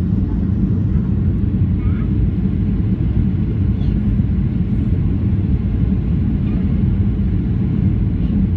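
Steady cabin noise inside a Boeing 737-800 in flight: the low rumble of its CFM56 jet engines and the rush of air past the fuselage, heard at a window seat over the wing.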